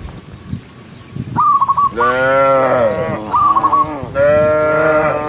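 Cows mooing: two long, drawn-out moos, each led by a short warbling high whistle.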